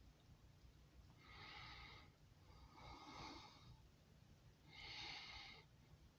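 Near silence: three faint breaths close to the microphone, about two seconds apart, over a low steady rumble.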